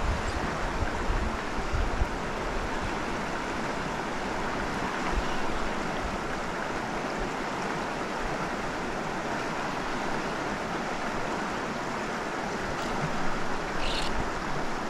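Mountain stream water rushing steadily, with a few light clicks near the end.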